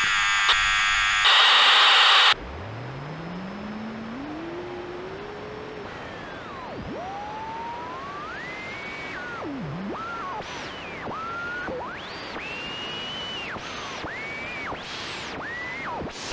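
Defective radio: loud static for the first two seconds, then cutting to a quieter steady hiss. Over the hiss, a low tone rises slowly, and higher whistling tones slide up and down in pitch, breaking off and coming back about every second.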